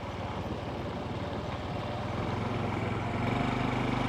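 Honda CT125's small single-cylinder engine running as the bike rides along, a steady low drone under road and wind noise; it grows louder about three seconds in.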